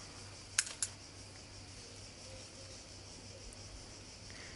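Two quick sharp snips about half a second in, as a cucumber stem is cut from the vine with a small hand cutter, over a steady background chirring of crickets.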